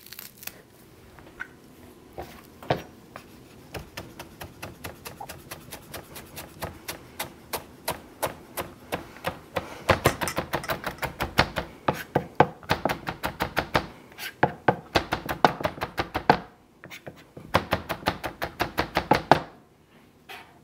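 Chef's knife chopping fresh cilantro on a plastic cutting board: quick, even knife strikes in runs with short pauses. The strikes get faster and louder about ten seconds in.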